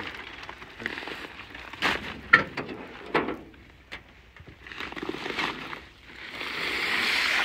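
Plastic fertilizer sacks rustling and crinkling as they are handled and folded, with a few sharp knocks. A longer rustle swells up near the end.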